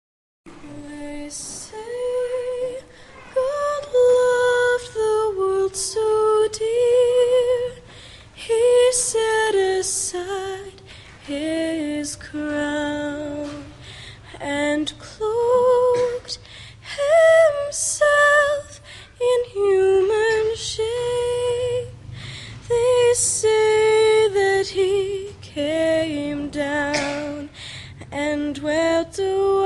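Church choir's female voices singing one slow melody line with vibrato in long held phrases, starting about half a second in.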